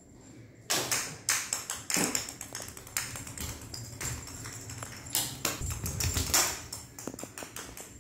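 Irregular run of sharp taps and knocks from a toddler playing with a plastic racket and ball on a hard tiled floor, with a deeper thud about six seconds in.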